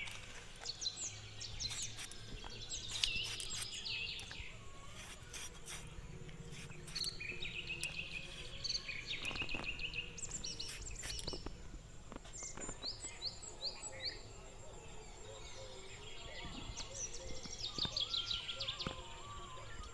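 Small birds chirping and calling in quick repeated notes and trills, with insects and a faint steady high tone in the background and a few short clicks.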